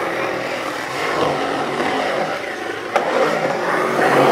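Skateboard wheels rolling on a concrete bowl, a steady rushing roll that swells as the skater carves, with a sharp click about three seconds in and the roll getting louder near the end.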